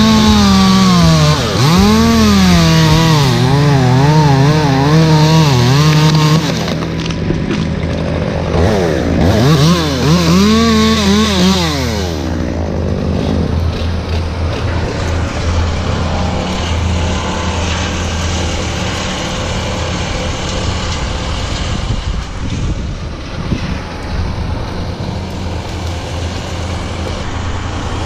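Two-stroke chainsaw cutting, revving up and down over and over for the first six seconds and again about nine seconds in, then running lower. A steady low hum sits underneath throughout.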